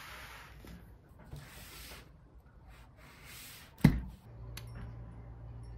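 Hands rubbing and sliding over a plastic-wrapped parcel, giving short stretches of hiss. One sharp thump, the loudest sound, comes about two-thirds through, then a low steady hum sets in.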